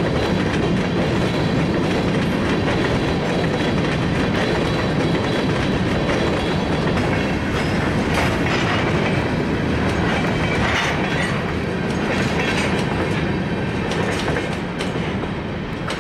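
A train rolling past, its steel wheels clacking over rail joints in a steady loud rumble, with scattered sharper clicks around the middle. It eases off slightly near the end.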